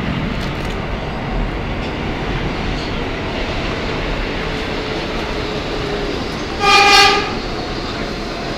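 Inside an R160 subway car running into a station: a steady rumble of wheels and motors. One short, loud horn note sounds about seven seconds in.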